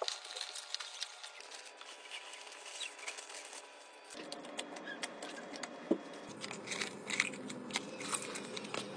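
Crinkling plastic snack packaging and snacks dropping into plastic and glass storage containers: a string of small taps, clicks and rustles.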